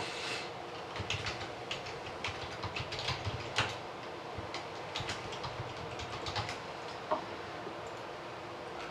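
Irregular clicks of typing on a computer keyboard, bunched between about one and six and a half seconds in, over a steady background hiss.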